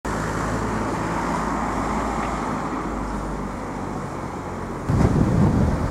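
Steady road traffic noise with a low engine hum underneath. About five seconds in it cuts abruptly to wind buffeting the microphone.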